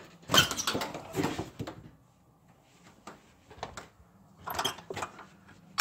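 Footsteps and shoe scuffs on a hard floor, coming in irregular bursts with sharp clicks, and a quiet spell about two seconds in.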